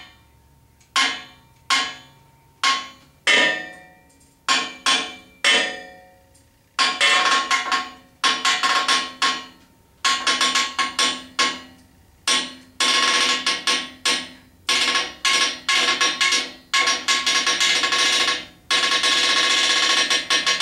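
Chain hoist lowering a hanging engine, its ratchet and chain clicking with a metallic ring. The first clicks come one at a time, about a second apart; about a third of the way in they become a fast, nearly continuous clatter.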